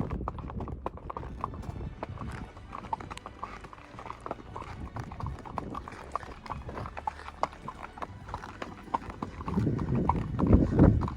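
Horse hooves in borium-tipped shoes clip-clopping at a walk on bare rock, sharp clicking steps in an uneven rhythm. A louder low rumble comes in near the end.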